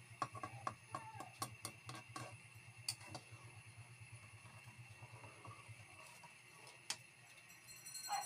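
Metal spatula clicking and scraping against an aluminium wok while stirring coconut milk: a quick run of light clicks through the first three seconds, then a single click near the end.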